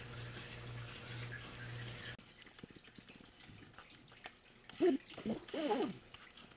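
Maine Coon kitten meowing: a few short calls that rise and fall in pitch, about five seconds in, among light clicks and taps of play. Before that a steady low hum cuts off suddenly about two seconds in.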